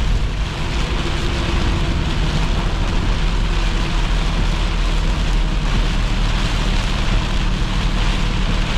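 Heavy rain hissing on a semi-truck's cab and windshield over the steady low drone of its diesel engine, heard from inside the cab.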